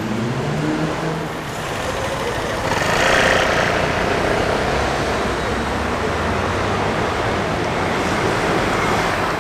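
City street traffic noise: a steady wash of cars with one vehicle passing close and louder about three seconds in.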